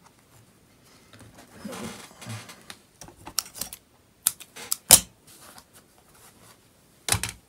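Irregular clicks and taps of hands handling small parts and tools on a workbench, with some soft rustling about two seconds in; the loudest click comes about five seconds in and a short cluster near the end.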